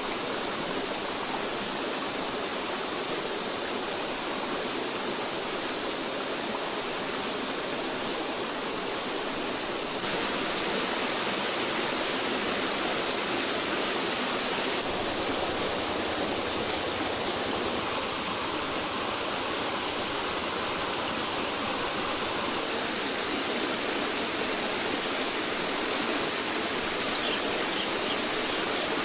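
Steady rushing outdoor background noise with no distinct events; its tone shifts slightly about ten and again about fifteen seconds in.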